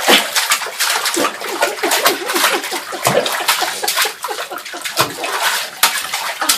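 Bathwater splashing as two toddlers slap and paddle the surface of a bubble bath with their hands: quick, irregular splashes, several a second.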